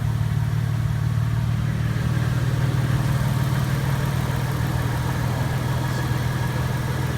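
Toyota FJ Cruiser's 4.0-litre V6 idling steadily.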